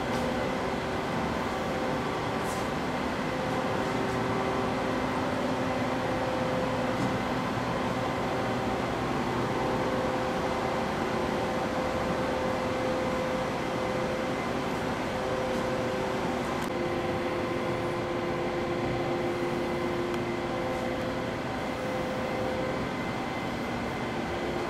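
A Prodis PDL-1500L CNC vertical machining center runs under power with a steady machine hum. Several whining tones stop, start and change pitch every few seconds as the machine's motors change speed.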